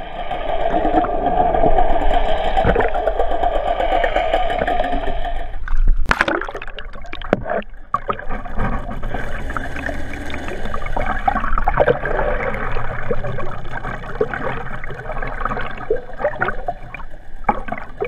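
Muffled rushing and gurgling water heard through a GoPro's underwater housing as it is towed through the sea, with a steady hum over the first few seconds. About six seconds in there is a sudden loud splash-like burst, after which the water sound turns more uneven, with scattered clicks.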